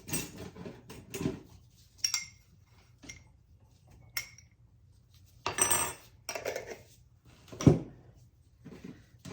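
Kitchen utensils and dishes clattering as ingredients are measured out: a scattered series of clinks and knocks, the loudest a single thump about three quarters of the way through.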